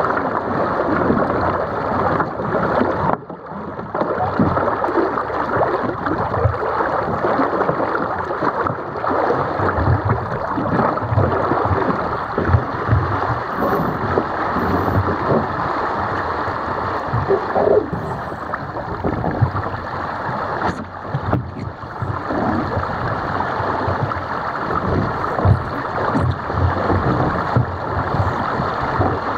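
Water rushing and splashing along the hull of a Musto Skiff sailing dinghy under way, with wind buffeting the deck-mounted microphone. The noise dips briefly about three seconds in.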